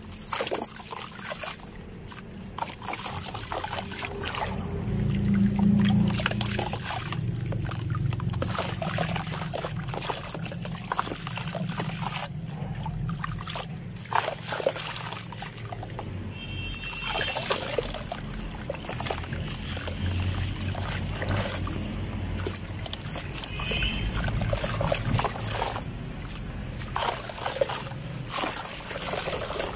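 Blocks of molded sand crumbling into a bucket of water under the hands: gritty crumbling with sloshing, trickling and splashing as the sand falls in and dissolves.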